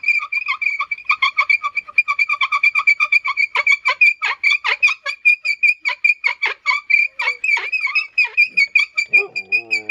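Hazel bow drill squealing as the spindle is sawn back and forth, a high, steady-pitched squeak pulsing several times a second with the bow strokes. Near the end a different lower sound with a bending pitch comes in.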